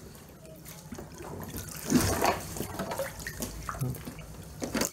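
Muddy floodwater sloshing and splashing around a person's legs as they wade through it. It is quiet at first, then splashes louder about two seconds in and again sharply near the end.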